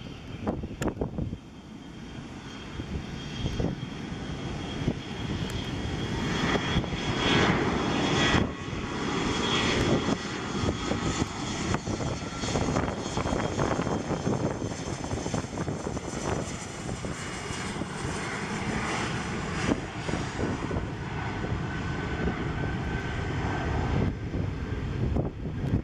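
Embraer ERJ-family regional jet's twin rear-mounted turbofans spooling up to takeoff thrust with a steady high whine over a broad jet rush, getting louder over the first several seconds and then holding through the takeoff roll and rotation near the end.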